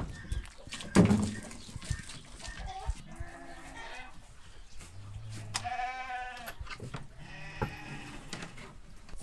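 Livestock bleating: one strong, wavering call about six seconds in, with fainter calls before and after it. A loud thump about a second in.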